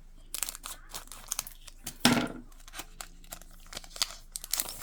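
Foil trading-card pack wrapper crinkling and tearing, with cards being handled: a run of sharp crackles, loudest about two seconds in.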